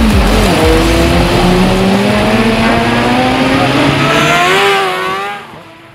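Sport motorcycle engine accelerating, its pitch slowly rising, then fading out near the end.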